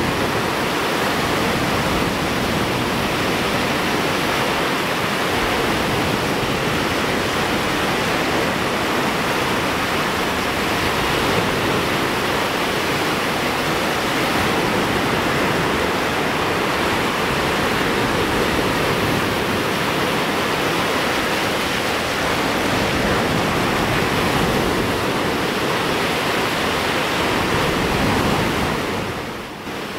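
Small waves breaking on a sandy beach, a steady rush of surf that drops in level near the end.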